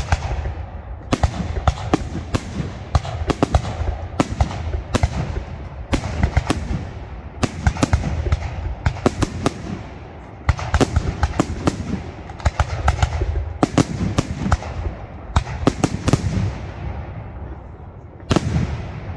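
Aerial fireworks display: a dense, continuous run of shell bursts and crackling reports, several bangs a second over a rolling low rumble of echo. One last strong bang comes near the end and its echo dies away.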